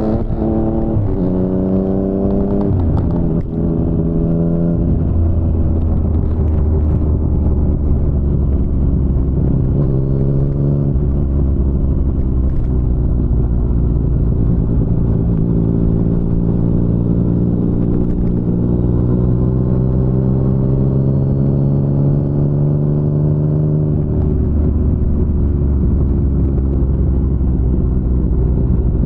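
Yamaha MT-09's 847 cc inline-three running through an Akrapovic full-system exhaust under acceleration. The engine note climbs and drops back at gear changes, about a second in, at about three and a half seconds, and near eleven seconds. It then pulls in one long, slow rise before dropping at about twenty-four seconds and running steady.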